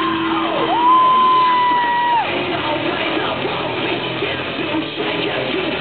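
Rock band playing live and loud, with yelling over the music. A single high note starts about a second in and is held for about a second and a half.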